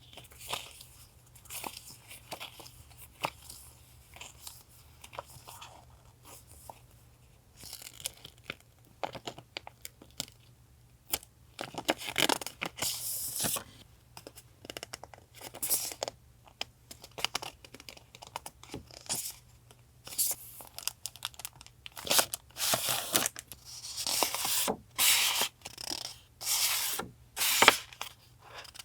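Paper and packaging handled close up: repeated tearing, crinkling and rustling with short taps, in longer tearing strokes around the middle and near the end. A faint steady low hum from a nearby refrigerator runs underneath.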